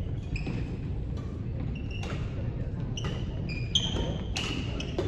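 Athletic shoes squeaking repeatedly on a hardwood gym floor as badminton players shuffle and lunge, in short high chirps, over the low hum of a large hall. One sharp hit stands out a little before four seconds in.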